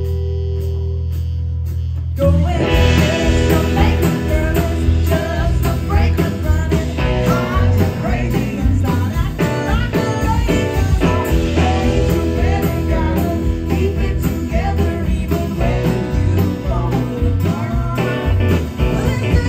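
Live country band: a woman singing over acoustic guitar and drums. A note is held for about two seconds, then the full band comes in louder with the vocal.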